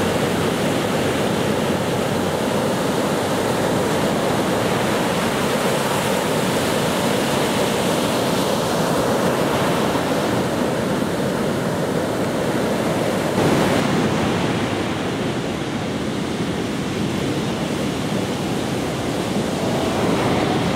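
Ocean surf breaking against the shore, a steady rushing wash mixed with wind; the sound thins a little about two-thirds of the way through.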